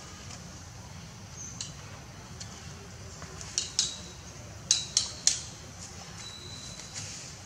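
Sharp clinking taps: two close together near the middle, then a quick run of three, some with a short ringing after them, over a steady low hum.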